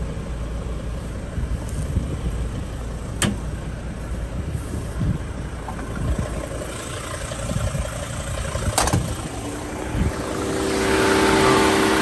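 Mercedes T1N Sprinter diesel engine idling steadily, with two sharp knocks about three and nine seconds in. From about ten seconds in a rising rush of air with a steady whine joins: the electric auxiliary condenser fan switching on as the air-conditioning refrigerant pressure climbs.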